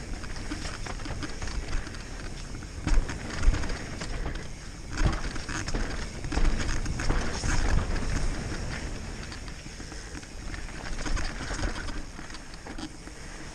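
Mountain bike ridden fast down a dirt forest trail: the tyres rumble over the ground and the bike rattles over rocks and bumps. There are two sharp knocks about three seconds in.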